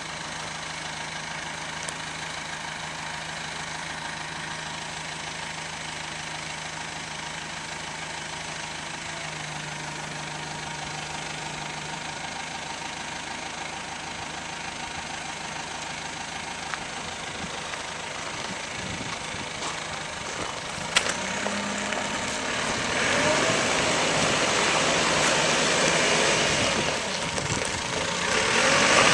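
Perkins 90 hp diesel engine of a Terex 760 backhoe loader idling steadily. A sharp click comes about two-thirds of the way through, and soon after the sound turns louder and noisier for the last several seconds.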